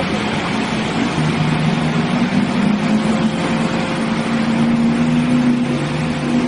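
Pickup truck engine driving through floodwater, holding a steady drone that comes in about a second in, over a continuous rushing noise.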